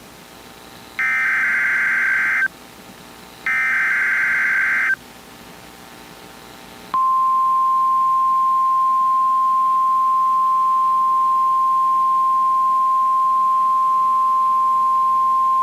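Emergency Alert System SAME header: two bursts of buzzing digital data tones, each about a second and a half long, then from about seven seconds in the single steady NOAA Weather Radio 1050 Hz alert tone, announcing a special marine warning.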